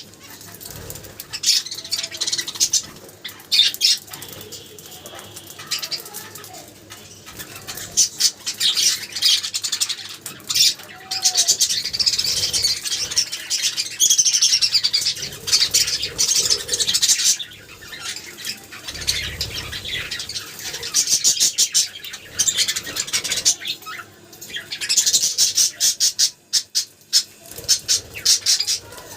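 Budgerigars chirping and warbling in long bursts of busy chatter, with many sharp clicks mixed in.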